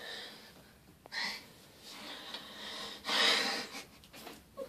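A cat hissing in a few short breathy bursts, the loudest about three seconds in.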